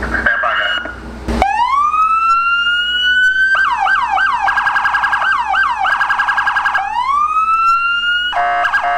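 Police car electronic siren on a Dodge Charger patrol car run through its tones. It starts with a slow rising wail about a second and a half in, switches to rapid repeating yelp sweeps, then goes back to a slow rising wail. Near the end it changes to a different, rapidly alternating tone.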